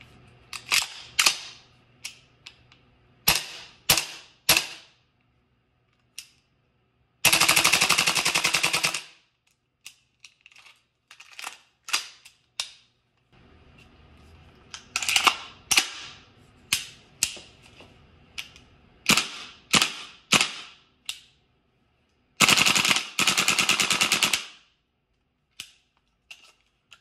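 Gas blowback airsoft M4 rifles, a Tokyo Marui MWS and a VFC, each fitted with an Expo Arms H2 buffer, firing with the bolt cycling on every shot. Each rifle fires a string of sharp single shots and then one full-auto burst of about two seconds; the pattern plays twice.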